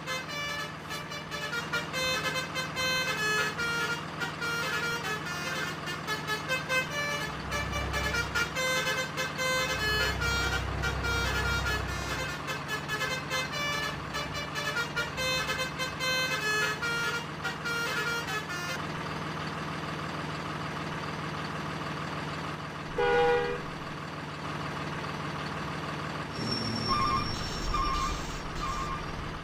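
Truck engine sound with a steady low hum, overlaid for much of the time by a melodic multi-tone 'telolet' bus horn playing a quick run of notes. Deeper engine rumbles come about 8 and 10–12 seconds in, a brief loud burst about 23 seconds in, and sparser repeated horn toots near the end.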